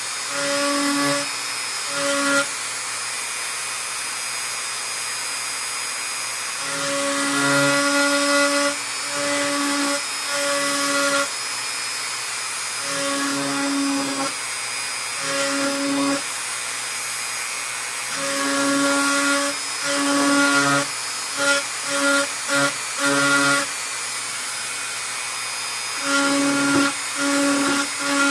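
High-speed handheld rotary tool carving fine detail, with a steady whine throughout. A fixed-pitch hum rises over the whine in on-and-off stretches of about a second or two each, as the bit is pressed into and lifted from the work.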